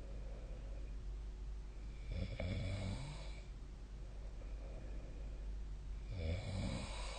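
A sleeping person snoring: two snores about four seconds apart, each lasting over a second, with faint breathing between them.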